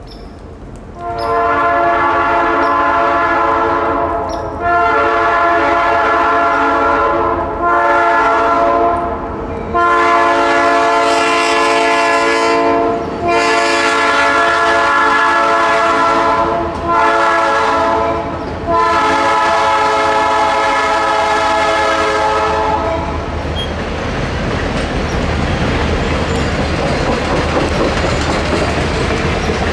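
Diesel locomotive air horn, a chord of several tones, blowing for a road grade crossing in seven blasts, long, long, short, long, long, short, long, over about twenty seconds. After the horn stops, the train's wheels rumble and clickety-clack as the passenger coaches roll past.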